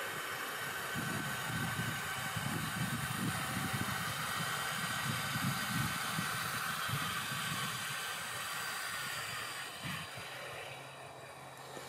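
Steady outdoor hiss with wind fluttering on the microphone, under a faint motor whine that fades out near the end as a pair of powered steel ranch gates swings shut.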